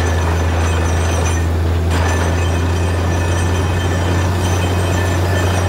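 Truck-mounted borewell drilling rig running steadily under load: a deep, constant engine and compressor drone with a loud hiss of air and spray as mud and water are blown out of the borehole. The hiss thins briefly about a second and a half in.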